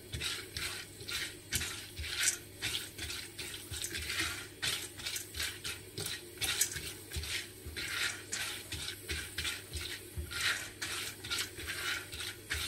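Silicone spatula stirring popcorn kernels in oil around a stainless steel pot, a quick scraping swish with each stroke, about two strokes a second, over a light sizzle as the pot heats up before the kernels start popping.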